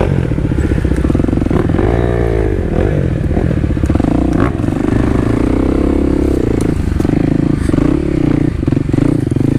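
Kawasaki KLX300's single-cylinder four-stroke engine running on a dirt trail, its revs rising and falling with the throttle, with a few short clatters.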